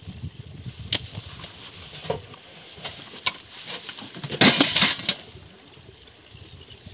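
Handling noises from sacks being loaded onto a donkey's pack saddle: a few separate knocks and clicks, then, about four and a half seconds in, a louder burst of rustling and scraping as a woven plastic sack is lifted and hung against the saddle.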